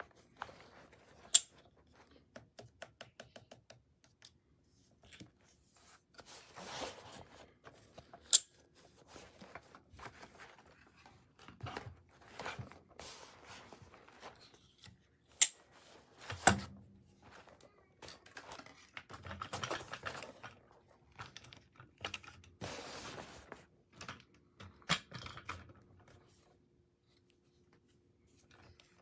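Objects being handled: a series of sharp clicks and snaps, four of them loud, with several spells of rustling and a faint steady hum underneath.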